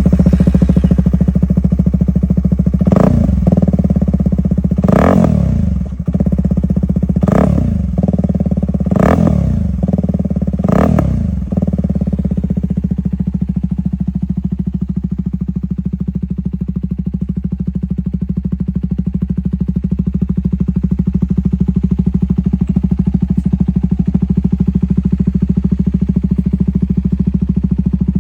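CFMoto CL-C450's parallel-twin engine and exhaust idling, revved five times in quick blips in the first twelve seconds, each rising and falling back to idle, then settling into a steady idle.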